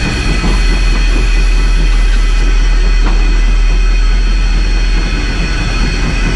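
Cab of Rio Grande Southern No. 20, an 1899 4-6-0 ten-wheeler steam locomotive, under way: a steady heavy rumble with several faint steady high tones over it.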